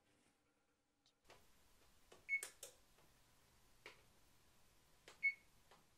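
Electric oven's touch control panel being set: several light button clicks, with two short high beeps about two seconds and five seconds in.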